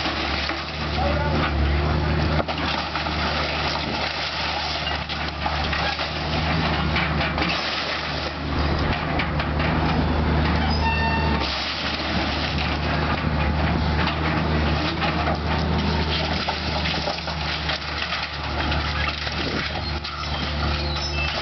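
Heavy diesel demolition machinery running steadily while debris clatters and crunches, the engine easing off briefly near the middle.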